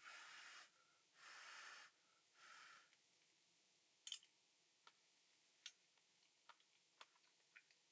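Three short breathy puffs about a second apart, like a person exhaling, then scattered faint clicks and ticks.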